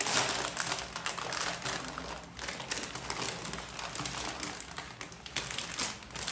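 Thin clear plastic packaging bags crinkling and crackling as they are handled and pulled apart: a dense run of small crackles with a short lull a little past two seconds in.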